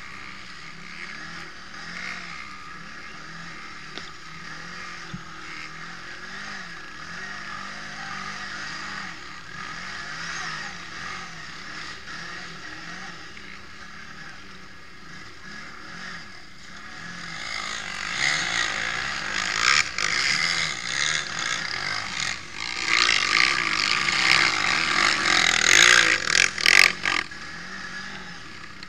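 Quad bike engine running at speed, heard from a camera mounted on the quad, under a steady rush of noise. About two-thirds of the way through it grows much louder and rougher, with irregular noisy surges and several sharp knocks.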